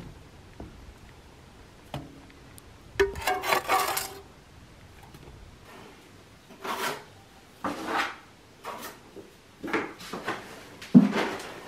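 Scrapes of a small trowel scooping a wet mix out of a builder's bucket: a longer scraping rub about three seconds in, then a run of short scrapes roughly a second apart.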